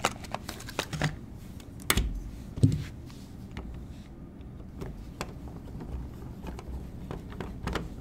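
Scattered handling clicks and taps, the sharpest about two seconds in. After that come faint ticks of a screwdriver turning the center screw of a wall outlet's cover plate.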